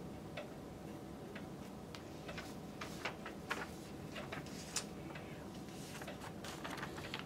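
Quiet room tone with faint, scattered ticks and clicks.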